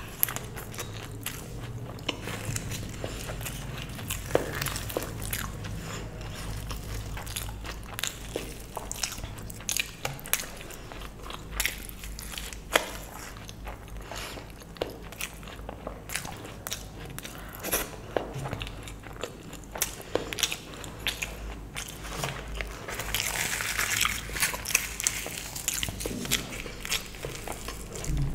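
Close-miked chewing of luchi (deep-fried puffed bread) with spicy potato curry, full of wet mouth clicks and lip smacks. A longer crackly, rustly stretch comes a little before the end.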